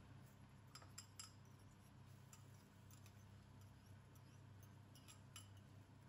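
Very quiet kitchen handling: a few faint, scattered clicks and light taps of kitchen utensils, grouped about a second in and near the end, over a low steady hum.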